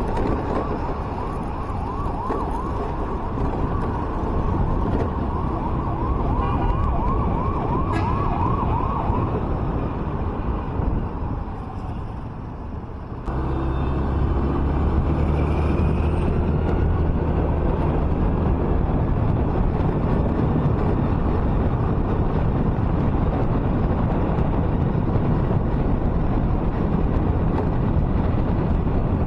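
A siren wails in quick rising-and-falling sweeps over traffic noise, fading out about ten seconds in. It is then replaced abruptly by the steady low rumble of a car's engine and tyres driving along the highway.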